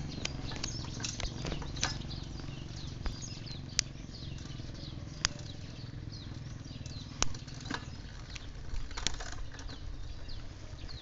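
Shimano thumb shifter clicking through its gear positions a number of times, at irregular intervals, over a steady low rumble. The shifter has just been refitted with a thinner inner cable and oiled, and is being tested for smooth shifting.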